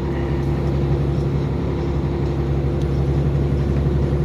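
Heavy truck's diesel engine running steadily under way, heard from inside the cab: a constant low drone with road noise.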